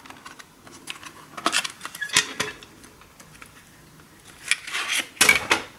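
Hard plastic Zip disk cases clicking and clacking as one is lifted off a stack and handled, with a cluster of louder clacks near the end as the case is opened.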